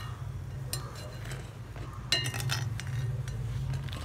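A metal ladle clinks against a cooking pan several times in quick succession, as fried dried red chillies are lifted out of the hot oil. A steady low hum runs underneath.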